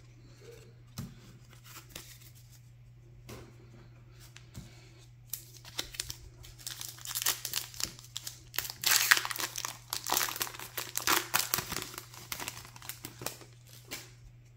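A trading card booster pack wrapper being torn open and crumpled by hand. A few light clicks come first, then a long run of crackly tearing and crinkling from about five seconds in until near the end.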